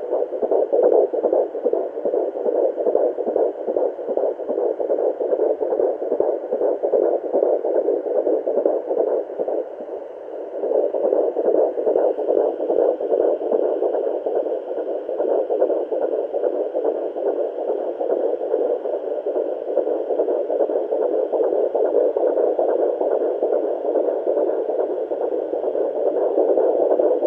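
Handheld fetal doppler's speaker playing a fetal heartbeat at 17 weeks of pregnancy: a fast pulse over static hiss, fading briefly about ten seconds in.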